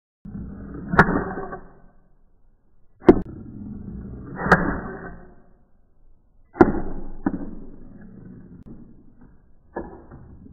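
Slowed-down sound of a homemade continuous Gauss accelerator (coilgun) cycling its steel ball: about six sharp knocks over the stretch, each trailed by a low rumble of the ball rolling along the metal rails and through the plastic funnels.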